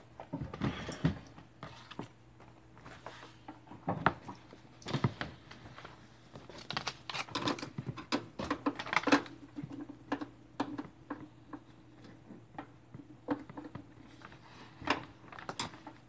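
Irregular clicks, knocks and rubbing close to the microphone, over a steady low hum.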